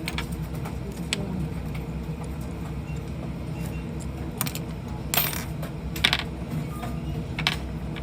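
Small metal clicks and clinks from hand tools on a phone-repair bench: a few light ticks, then three sharper clinks about five, six and seven and a half seconds in, over a steady low hum.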